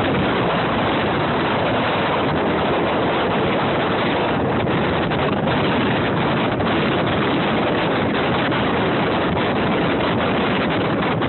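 Strong hurricane wind blowing across a phone's microphone, mixed with surf: a loud, steady rush of noise with small buffets in it.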